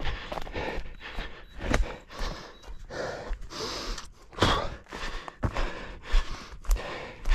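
A runner's footfalls on the forest floor, close to the microphone, with hard breathing between them.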